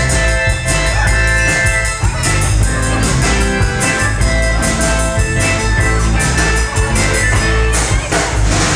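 Rock band playing live and loud: electric guitars over a drum kit in an instrumental passage, with no vocals.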